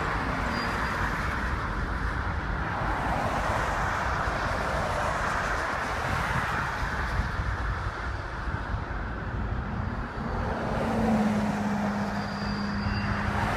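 Freight train of open-top cars rolling by on the track, a steady rumble of wheels on rails; a low steady hum joins near the end.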